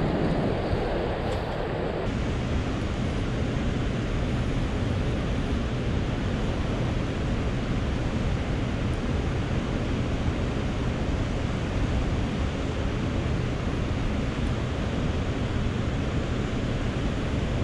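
Steady rush of turbulent water pouring out below a dam.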